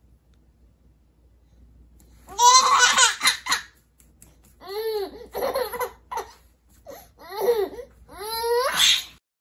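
A nine-month-old baby laughing in four high-pitched bursts of giggles, beginning about two seconds in.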